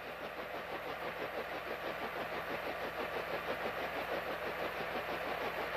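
Bell H-13 Sioux helicopter running, its piston engine and turning main rotor making a steady sound with a rapid, even pulsing.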